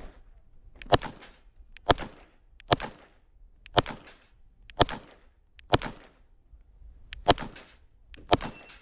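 CZ P-10 F pistol fired at steel, a plate rack, in slow aimed shots. There are eight sharp shots about a second apart, each with a short echo tail.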